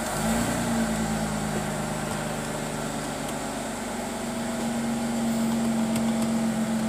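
2004 Ford Mustang's engine idling steadily with an even low hum.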